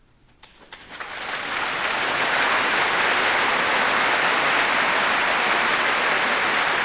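Large audience applauding. It begins with a few scattered claps and swells within a couple of seconds into full, steady applause.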